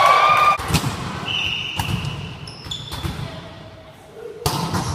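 Volleyball players calling out and the ball being struck and hitting the hardwood gym floor several times, with echo in the hall. A high steady tone lasts about a second and a half, starting just after a second in.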